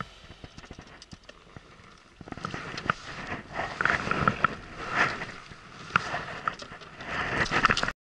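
Water splashing and sloshing at the surface, with reel and rod handling clicks, as a hooked Biwa trout is reeled alongside a small boat and thrashes at the surface. It starts faintly, grows louder about two seconds in with many short splashes and clicks, and cuts off suddenly near the end.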